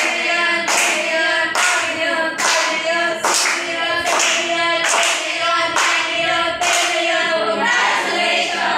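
A class of students singing a short chant together in unison, clapping on the beat about once a second.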